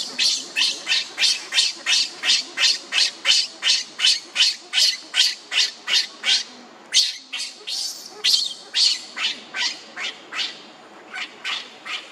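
Newborn baby macaque screaming in distress on the ground as its mother walks away: a rapid run of short, high-pitched cries, about three a second, that break off briefly midway and then come slower and fainter toward the end.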